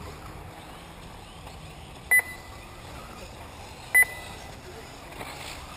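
Two short electronic beeps about two seconds apart, the kind an RC race's lap-counting system gives as cars cross the timing loop, over a faint steady background hiss.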